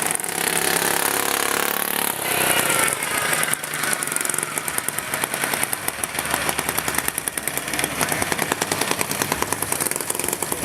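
Small engines of racing lawn mowers running. Pitch rises over the first couple of seconds as one is revved, then settles into a rapid, even pulsing beat.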